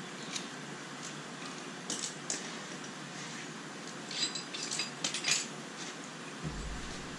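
Light metallic clinks of small steel bolts and a hand tool being handled as the 10 mm bolts come off an engine cover: a few single clicks, then a quick run of ringing clinks in the middle. A soft low thump comes near the end.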